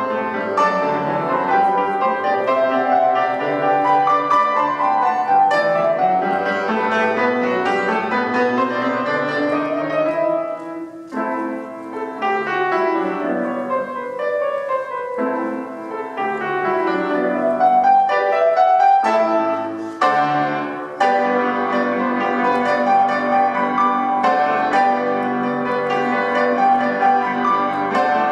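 Grand piano played four hands, a classical duet with fast runs of notes over chords. The playing breaks off briefly twice, about a third and about two-thirds of the way through, between phrases.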